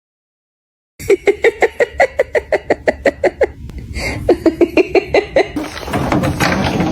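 A person laughing in quick, rhythmic bursts, about five a second, in two runs, after a second of silence. Near the end a noisier, less even sound takes over.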